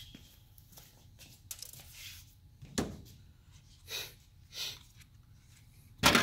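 Plastic parts of a truck gear selector being handled on a metal workbench: scattered light clicks, rattles and knocks, with one sharper knock near the end as something is set down or picked up from the bench.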